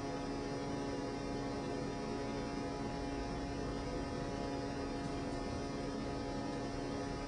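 Steady electrical hum over a constant hiss, with no distinct events.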